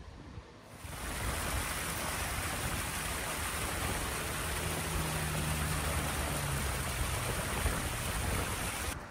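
Small waterfall pouring over rocks, a steady rushing splash that starts about a second in. A faint low hum runs under it for a couple of seconds in the middle.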